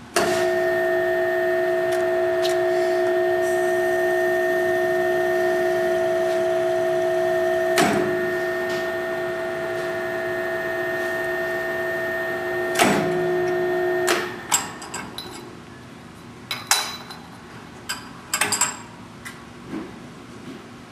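Grizzly G0521 self-reversing drill press motor starting suddenly and running with a steady hum while its three-spindle head drives 10-32 taps. A click about eight seconds in marks the depth switch reversing the motor to back the taps out; another click comes near thirteen seconds, and the motor stops at about fourteen seconds. Scattered clicks and knocks follow as the part is handled in the vise.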